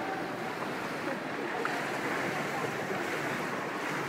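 Indoor swimming pool noise: a steady wash of splashing water with faint, indistinct voices.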